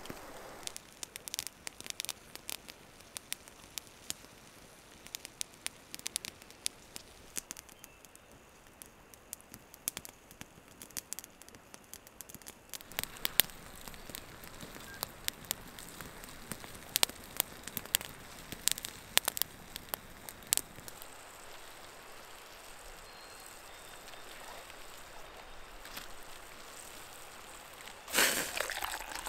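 Wood campfire crackling, with many sharp snaps and pops over a low hiss. Near the end, water is poured from a pot into a mug for about a second.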